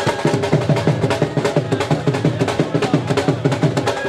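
Drums played in a fast, steady rhythm, about five or six deep strokes a second with sharper, higher strokes between them.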